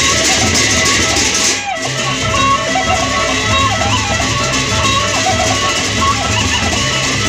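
Lombok gendang beleq ensemble playing: a bamboo suling flute carries a wavering, ornamented melody over the steady beat of large barrel drums and the jingle of small cymbals. The music briefly dips in level about 1.7 seconds in.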